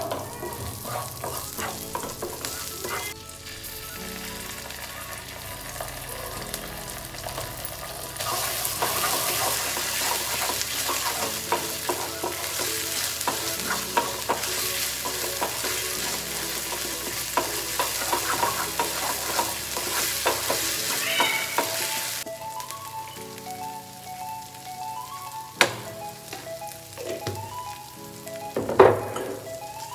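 Garlic and green chillies sizzling in hot oil in a frying pan, stirred with a wooden spatula that knocks and scrapes against the pan. The sizzle grows louder about 8 seconds in and eases off again after about 22 seconds.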